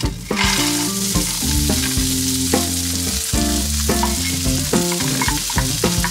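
Green peas tipped into a hot nonstick frying pan, sizzling steadily from about a third of a second in, over background music.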